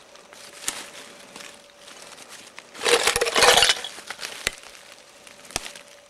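Dry leaves and litter of glass, tin and plastic crunching and clinking. A loud crunching burst lasts about a second in the middle, with a few single sharp clicks before and after it.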